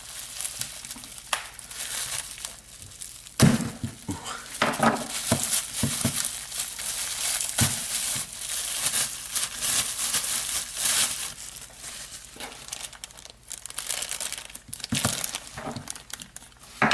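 Packaging crinkling and rustling as a puzzle is unwrapped by hand, with a sharp knock about three and a half seconds in and scattered clicks.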